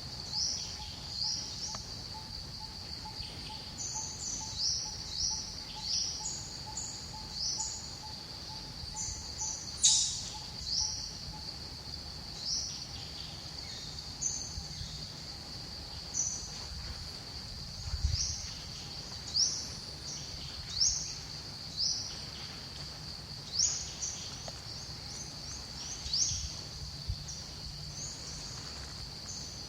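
Outdoor ambience: a steady high-pitched insect drone with short, rising bird chirps repeating every second or so, one louder chirp about ten seconds in.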